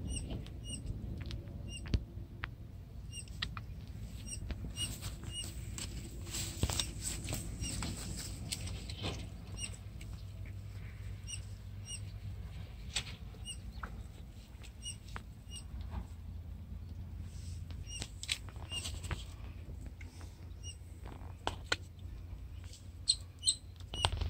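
Short high chirps repeating about two to three times a second over a steady low rumble, with scattered sharp clicks, a cluster of them near the end.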